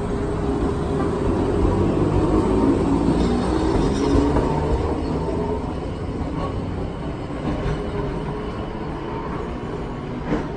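Iyotetsu streetcar pulling away from a tram stop: motor hum and steel wheels on the rails, loudest a couple of seconds in, then easing off as it moves away.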